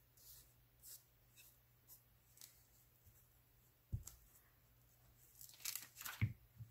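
Soft paper rustling, a light knock about four seconds in, then about a second of scratchy rubbing as a glue stick is worked across a small paper cut-out, ending in another light knock.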